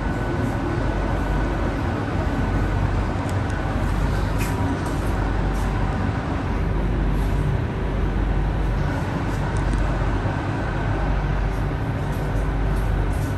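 Interior of a RapidKL ART200 linear-motor metro car running at speed: a steady, loud rumble of wheels on rail, with faint steady whines from the drive and occasional light clicks.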